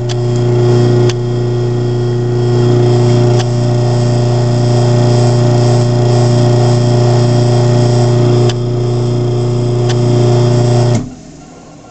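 Craftsman half-horsepower garage door opener running as it closes the door: a steady motor hum with a few faint clicks, cutting off sharply near the end as the door reaches the floor.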